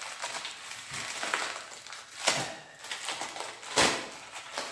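Packaging being opened by hand: steady crinkling and crackling, with two sharper cracks about two seconds in and near the four-second mark.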